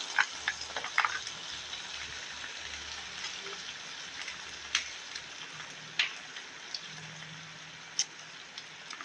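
Pan of tomato spaghetti sauce with hot dog and pork sizzling, a steady crackle broken by a few sharp pops.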